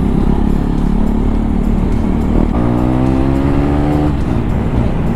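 KTM Duke 390's single-cylinder engine running on the move, exhaust without its dB killer. About halfway through, a pitched note rising slightly sounds for about a second and a half.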